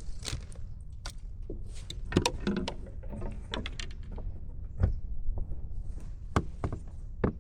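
Scattered sharp knocks and clicks on a plastic kayak as a freshly landed snook and fishing gear are handled, over a steady low rumble.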